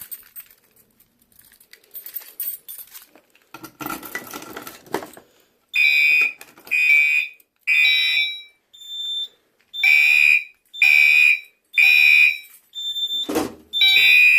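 Faint clicks and rustling as a fire alarm pull station is key-operated, then, about six seconds in, Gentex fire alarm horns begin sounding. The horns give loud three-blast groups with a pause after each, the temporal-three evacuation pattern. A single thump comes in the second pause.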